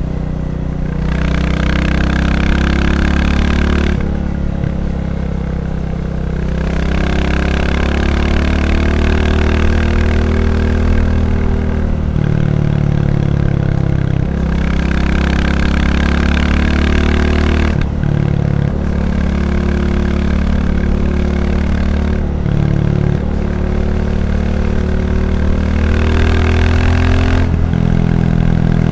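Royal Enfield Classic 350's single-cylinder engine running on the move, with the revs rising and dropping several times as the bike pulls along.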